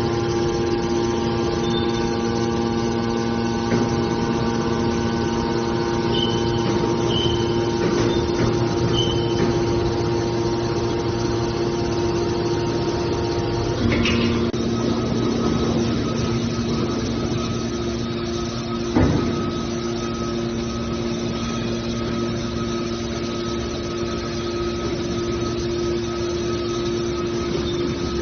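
Aluminium baler machine running with a steady mechanical hum made of several fixed tones. The tones shift to a new pattern about halfway through, and there is a short clank a few seconds later.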